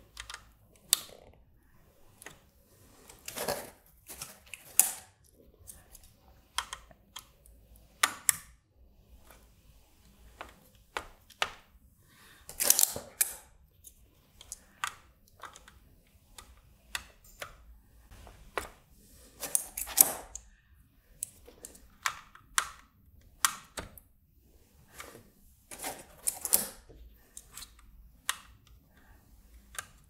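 Toggle switches for an IMSAI front panel being set into their circuit board by hand, one after another: irregular small clicks and clacks of the switch bodies and paddles, with a few louder knocks among them.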